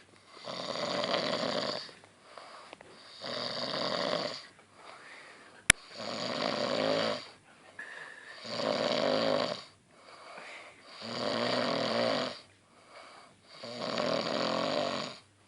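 A sleeping man snoring: six loud, rasping snores, about one every two and a half seconds, with quieter breaths between them. A single sharp click about halfway through.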